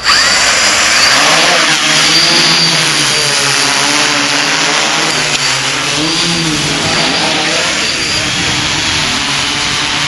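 Quadcopter's electric motors and propellers buzzing loudly, their pitch sweeping up and down as the throttle changes. The sound cuts in suddenly at full loudness.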